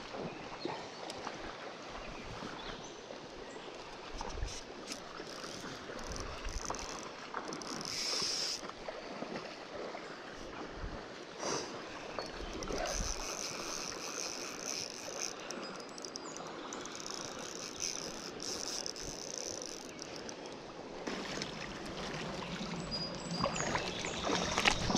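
River water running and splashing, with scattered small knocks and bumps of gear and handling.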